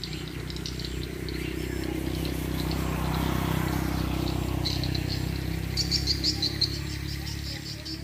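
Swiftlets twittering: short high chirps repeating, with a quick run of about seven near the end. Under them a low rumble swells through the middle and fades.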